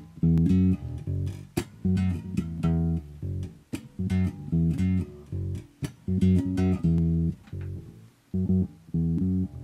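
Short-scale electric bass with a passive precision pickup, plucked through a multi-effects pedal, playing a short riff of low notes that repeats about every two seconds.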